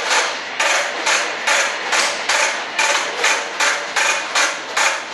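Cured fiberglass panel being worked by hand in quick back-and-forth rasping strokes, about two to three a second, most likely as pieces are cut out of the sheet.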